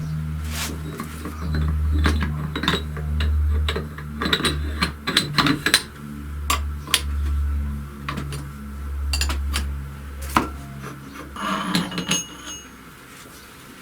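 Metal engine parts clinking and knocking as they are handled on a workbench, many short sharp strikes scattered through, with a few ringing clinks near the end, over a low pulsing hum.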